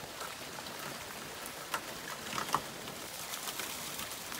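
Heavy rain falling steadily, pattering on pavement and foliage as a continuous hiss of drop ticks, with a few slightly louder short sounds about halfway through.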